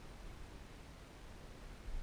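Faint steady hiss with a low rumble on the microphone, and a brief bump just before the end.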